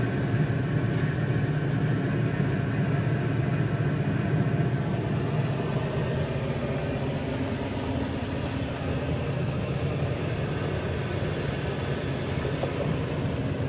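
John Deere 9500 combine running steadily: a constant low engine drone with machinery noise over it.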